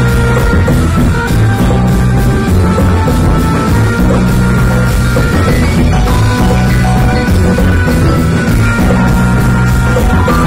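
Live band playing loud, rock-styled music: a drum kit with cymbals over held bass notes and chords.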